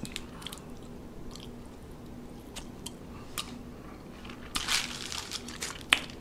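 A person biting off and chewing a gummy mango fruit leather (aam papad) close to the microphone: scattered soft, wet mouth clicks and smacks. A short louder burst comes a little past two-thirds of the way in, and one sharp click comes near the end.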